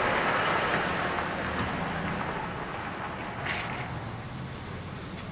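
Outdoor ambience: a steady rushing noise, like traffic on a road or rain, over a low hum, fading gradually.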